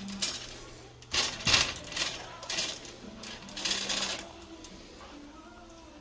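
Blue plastic shopping cart rattling as it is pushed across a store floor, in several bursts, loudest about a second and a half in and dying away after about four seconds.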